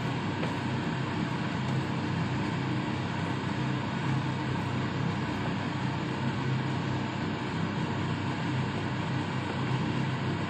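Noodles and vegetables stir-fried in a wok, tossed with a wooden spatula, under a steady fan drone from the kitchen.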